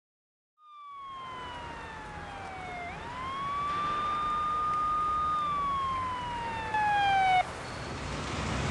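Police siren wailing: its pitch slides slowly down, sweeps quickly back up and holds, then slides down again before cutting off abruptly near the end, over a low background hum.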